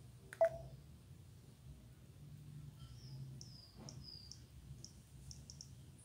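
Button presses on a Samsung Gravity TXT (SGH-T379) phone's keypad and navigation keys during menu browsing. One sharper click comes about half a second in, then a run of short, high-pitched beeps and ticks in the second half.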